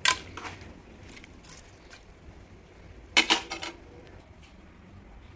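Metal clinks and knocks against an aluminium pressure cooker pot while ingredients are arranged in it: a sharp clink at the start, a lighter tap soon after, and a louder clatter about three seconds in.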